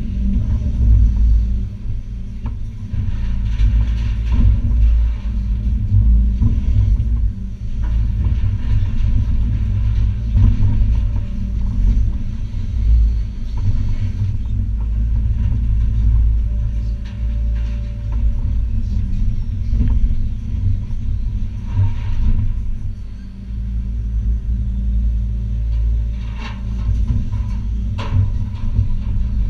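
Hitachi ZX280 excavator's diesel engine running steadily under load, heard from inside the cab as the boom and bucket work. Scattered sharp knocks and scrapes of demolition rubble and sheet metal come through, a few of them near the end.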